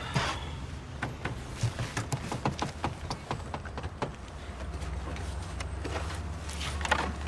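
Irregular light clicks and knocks for about the first four seconds, then a low steady hum with a short rustling burst near the end.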